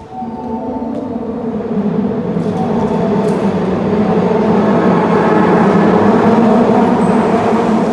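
Osaka Metro Midosuji Line subway train running along the platform, its rumble and motor hum growing louder over the first few seconds and then holding steady.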